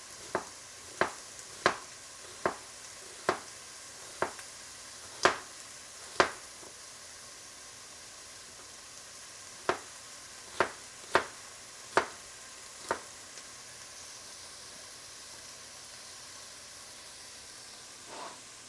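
Chef's knife slicing an onion on a cutting board: about a dozen sharp chops, roughly one a second, with a pause in the middle and none after about two-thirds of the way through. Under it, the steady sizzle of ground pork frying in a pan.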